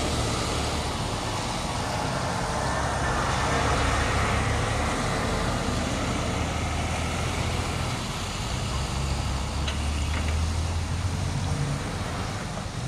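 Heavy diesel tow trucks (wreckers, a rotator and a rollback) driving slowly past one after another, their engines running with a steady low rumble.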